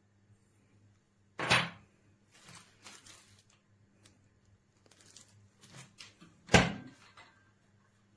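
Handling noise: two sharp knocks about five seconds apart, the second louder, with lighter clicks and rustling between them, over a faint steady hum.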